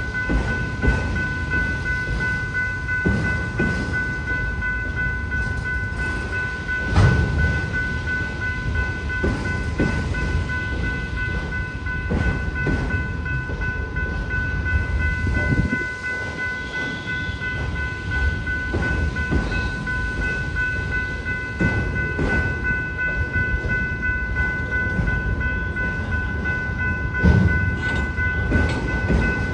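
Freight train of autorack cars rolling through a grade crossing: a steady low rumble with loud wheel clunks every few seconds, under the constant ringing of the crossing bell.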